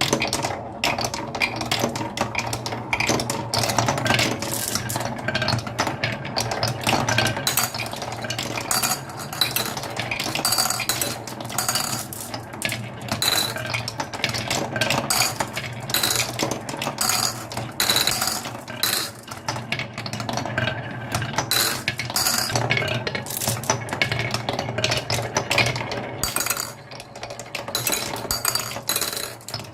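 Many marbles rolling and clattering down a toy marble run, a continuous dense stream of hard clicks and clacks as they knock against the track and each other.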